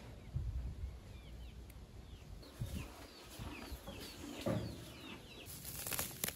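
Chickens peeping and clucking: a run of many short, high, falling peeps, with a few low thumps and a brief burst of noise near the end.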